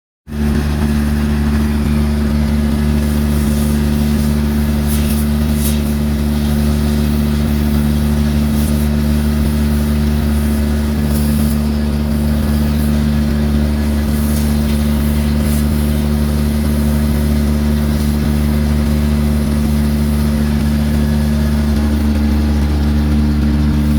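Excavator's diesel engine running steadily at a constant speed, with a slight change in its tone near the end.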